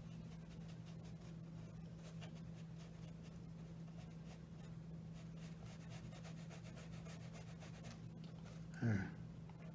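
Soft strokes of a watercolor brush on paper, faint over a steady low hum. Near the end comes one short, louder sound that falls in pitch.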